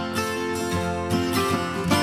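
Background music: a light tune of plucked string notes, in the manner of an acoustic guitar, picked note by note at an even pace.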